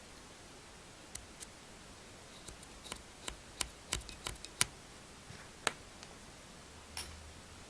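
A dozen or so sharp, irregular clicks and taps, thickest in the middle, from the old dual-mass flywheel being handled and turned by hand to check its play.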